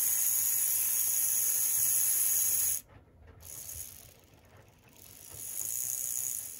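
Electric motor and drive shafts of an HO-scale Mehano-built GP18 locomotive chassis running on clip-lead power, a steady whir with a high hiss, freshly working after tarnish was cleaned from its brush plates and brush springs. It cuts off abruptly about three seconds in, then comes back fainter, swelling and fading. It carries a couple of little noises that the owner expects to work themselves out with runtime.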